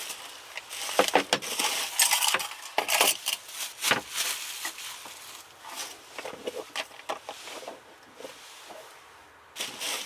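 Bubble-wrap bags crinkling and rustling as camping lanterns are wrapped and packed, with light clinks and knocks of the lanterns' metal parts, busiest in the first few seconds and tapering off later.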